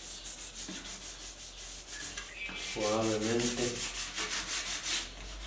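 Fine 400-grit sandpaper rubbed by hand in quick back-and-forth strokes over the dried sealer coat on wooden drawer fronts, lightly scuffing the finish smooth before the next coat. A short vocal sound comes about three seconds in.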